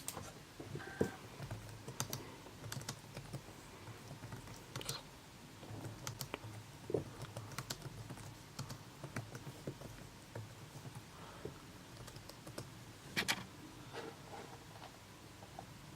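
Faint, irregular clicking of keys being pressed on a computer keyboard, with a louder cluster of clicks about 13 seconds in.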